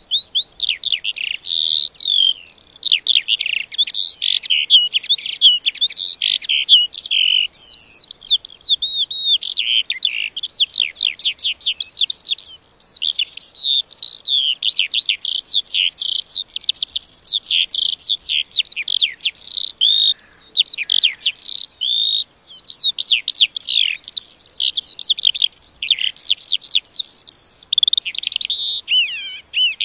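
A lark singing a long, unbroken song: a rapid stream of varied chirps, whistles and trills with no real pause.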